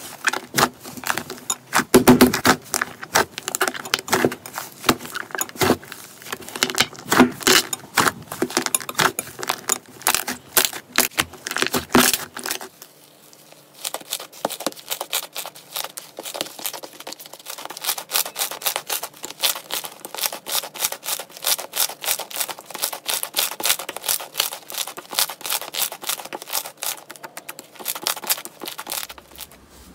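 Hands squeezing and stretching slime, giving rapid, dense clicking and crackling. Just under halfway through the sound changes abruptly to finer, quieter crackling as a different, stringy slime is pressed and folded.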